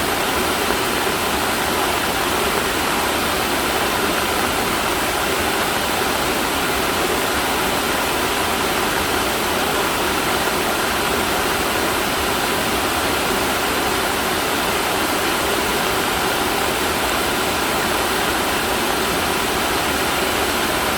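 Heavy outflow of floodwater rushing from a reservoir after monsoon rains, a loud steady roar of falling and churning water.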